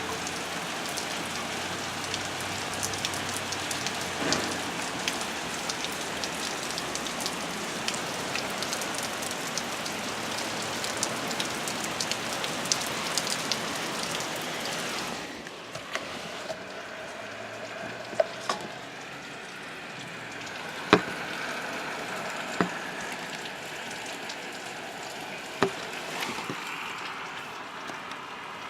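Heavy rain falling in a dense, steady patter that eases suddenly about halfway through. Lighter rain is left, with a few separate sharp drips or taps that stand out.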